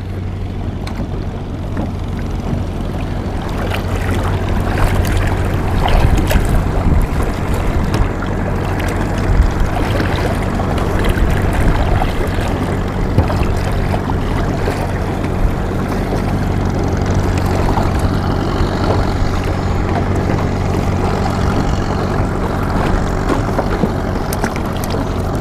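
A small boat's motor running steadily on the river, with rushing water and wind noise that grow louder over the first few seconds.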